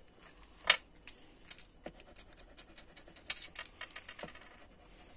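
Faint clicks and paper handling as a card-stock box template is worked by hand and a tape-runner adhesive is run along its tabs, with one sharper click less than a second in and a run of small ticks after it.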